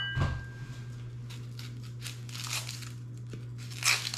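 Dry onion skin being peeled and torn off, a few soft papery crinkles and rips, the loudest near the end. It opens with a brief metallic clink that rings for a moment, over a steady low hum.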